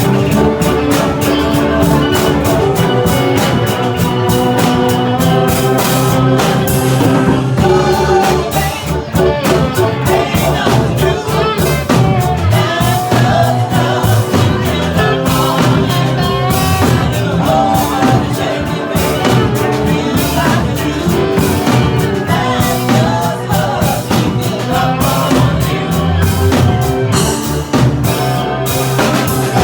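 Live band playing a blues-rock song, with a drum kit keeping a steady beat under pitched instruments and singing.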